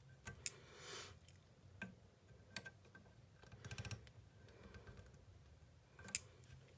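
Faint, scattered metal clicks and scrapes of hand tools working a stripped scope base screw on a shotgun receiver. A short scrape comes about a second in, a quick run of clicks near the middle, and a sharp click near the end.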